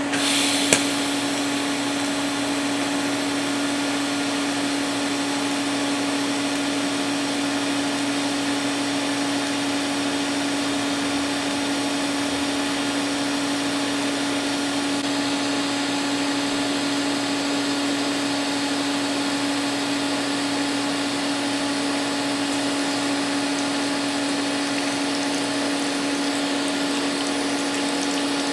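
TIG welding arc burning steadily on mild steel: a constant hiss over a steady hum from the welder and the water cooler of its water-cooled torch. One sharp click comes under a second in.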